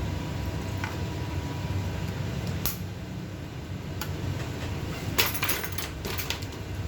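Small hard parts and hand tools clicking and clattering on a workbench during a drone gimbal repair: a few single clicks, then a quick run of rattling clicks near the end, over a steady low hum.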